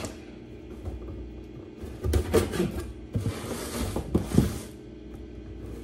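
Pocket knife slitting the packing tape on a cardboard shipping box: two stretches of scraping starting about two seconds in, with light knocks as the box is handled.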